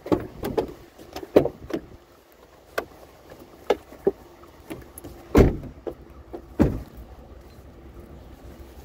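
Scattered knocks and clunks of items and car parts being handled at a vehicle, with two heavier thumps a little past halfway.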